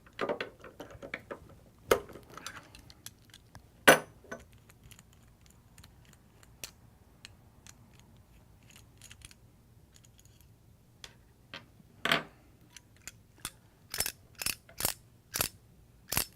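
Small metal parts of a Tritech T380 airless spray gun clicking and clattering as the seal assembly and retractor pins are taken out. Scattered sharp clicks, the loudest about four seconds in, then a quick run of clicks near the end.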